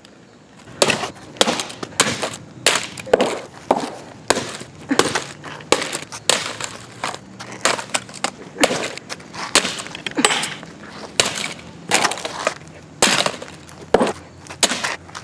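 Stones thrown at a white plastic MacBook laptop on a chair, hitting it over and over. A rapid run of sharp cracks and smashes starts just under a second in, about two a second, as the lid and screen break apart.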